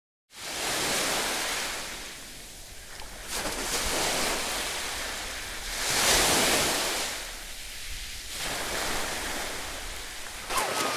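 Small waves washing onto a beach, the surf noise swelling and fading every few seconds. Near the end there is splashing as someone runs through the shallow water.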